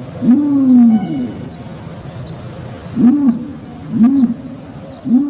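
Ostrich giving deep, hooting booming calls, four short arched hoots, the first a little longer, over a steady background hiss.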